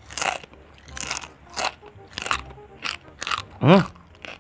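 Keripik kaca, thin brittle glass chips, being crunched and chewed in the mouth: about six crisp crunches, one every half second or so. About three and a half seconds in there is a short hum of the voice.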